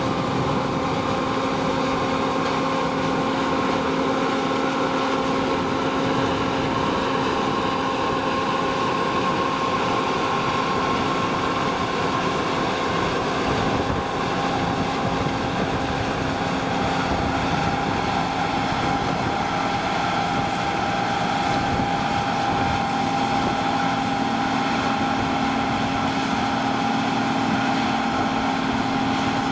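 Heavy diesel farm machinery running steadily during harvest: a constant engine drone with a steady whine over it.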